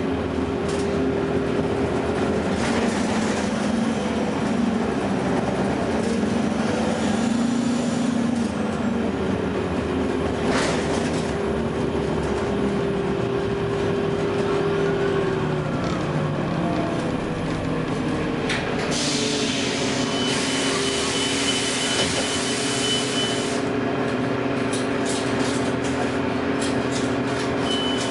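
2009 Gillig low-floor hybrid bus under way, its Cummins ISB diesel and Allison EP40 hybrid drive running with a pitch that slowly rises and falls as the bus speeds up and slows. About 19 s in a hiss with a high steady tone starts and cuts off about four seconds later, and the high tone returns near the end.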